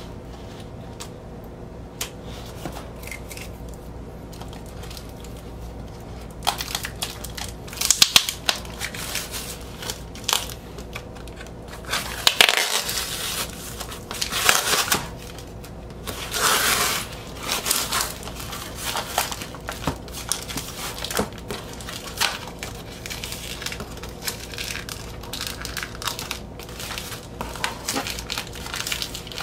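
A cardboard vinyl-record mailer being opened with scissors: packing tape slit and peeled off and plastic wrapping handled, in irregular rustling and ripping bursts with scattered snips and clicks. It is mostly quiet for the first six seconds, and loudest about eight seconds in and again from about twelve to seventeen seconds.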